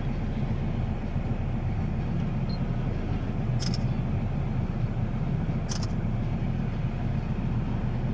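Steady low rumble of a car's idling engine and the surrounding jammed street traffic, heard from inside the car's cabin. Two brief high chirps sound, about three and a half and six seconds in.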